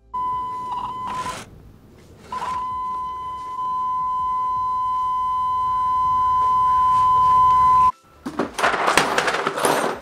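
The seat belt warning buzzer of a 1982–1992 Camaro/Firebird sounding a steady high-pitched tone, broken off about a second in, then held for about five seconds before it cuts off suddenly. Near the end comes a rapid clatter of metal hand tools.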